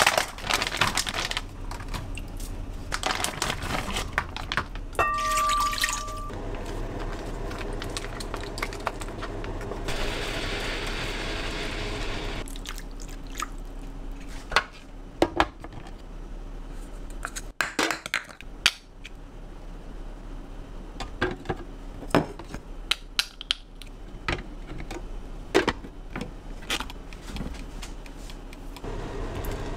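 Kitchen handling sounds: a plastic food package rustled, a single electronic beep about five seconds in, and liquid poured for a couple of seconds around ten seconds in. Then come scattered clicks and knocks as eggs and the lid are set on a plug-in egg steamer.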